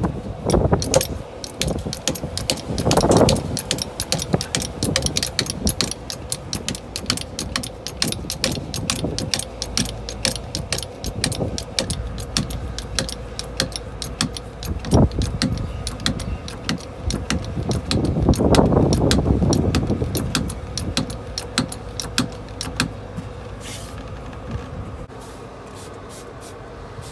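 Metal hand tools clicking and clinking rapidly and repeatedly against a motorcycle wheel while the tyre bead is being broken loose from the rim, with a few heavier thumps about three seconds in, near the middle and around two-thirds through.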